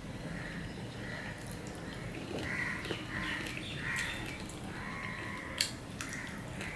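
A crow cawing repeatedly, a series of short calls that are strongest in the middle, with a sharp click about five and a half seconds in.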